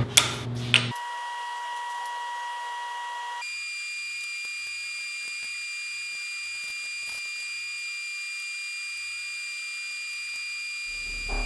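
Steady high-pitched electronic tone that jumps to a higher pitch about three and a half seconds in, after a few clicks at the start.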